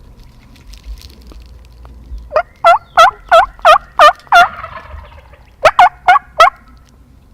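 Turkey-hen yelping, loud and close as from a hunter's turkey call: a run of seven sharp yelps at about three a second, a pause of about a second, then four more.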